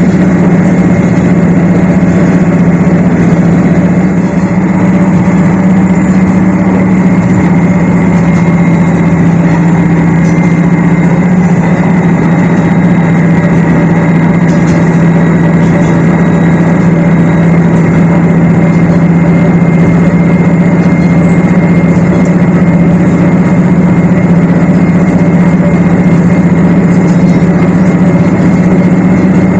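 Shigaraki Kohgen Railway SKR400-series diesel railcar heard from inside the passenger cabin while under way: a loud, steady engine drone that holds one low pitch throughout.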